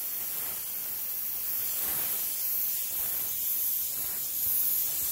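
Gravity-feed paint spray gun hissing steadily as it lays very light, dry passes of base coat over a sanded spot to blend it in.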